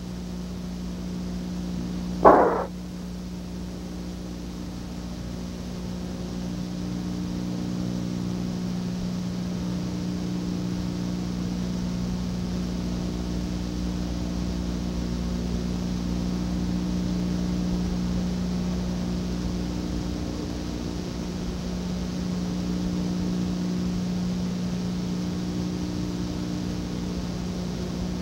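Steady electrical hum with hiss from an old recording's soundtrack, with no commentary or crowd. A single short loud blip comes about two seconds in.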